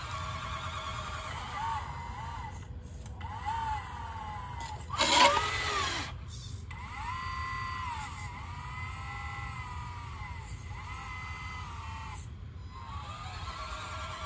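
Electric motors of a 1:14 scale RC Caterpillar 988 wheel loader whining in a series of spells, each rising in pitch, holding and falling away as the model works. A short, loud rush of noise comes about five seconds in.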